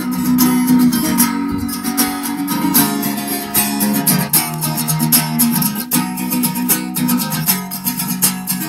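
Acoustic guitar playing the instrumental intro of a song, chords strummed in a steady rhythm.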